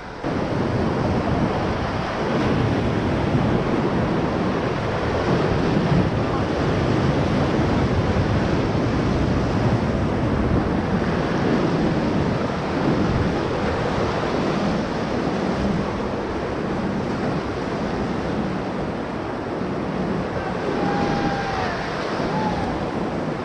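Rushing whitewater of the Ocoee River's rapids around a raft, a loud, steady churning of water, with wind buffeting the microphone.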